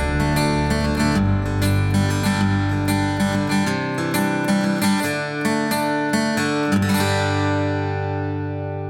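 Music: strummed guitar, ending on a chord about seven seconds in that rings on and slowly fades.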